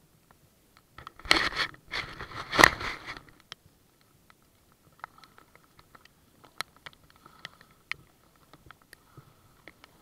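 Loud scraping handling noise of something brushing against the kayak-mounted action camera's housing for about two seconds, then scattered sharp ticks of raindrops striking the housing.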